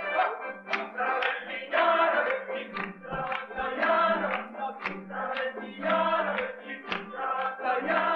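Folk song sung by a group of voices, with sharp regular beats and a steady low hum underneath.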